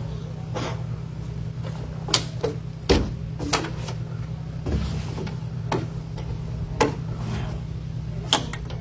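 Spacer tabs being yanked out from between the boards of a wooden privacy screen, a sharp snap each time, about eight in all at uneven intervals. A steady low hum runs underneath.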